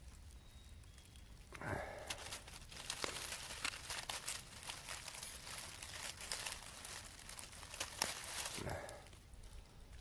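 Dry dead leaves and twigs crackling and rustling under a hand as ramp leaves are picked. There is a short breathy exhale about two seconds in and another near the end.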